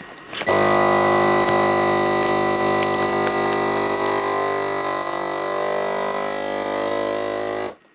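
Vacuum sealer's pump motor running with a steady hum, drawing the air out of a bag of sweet corn, then cutting off suddenly near the end.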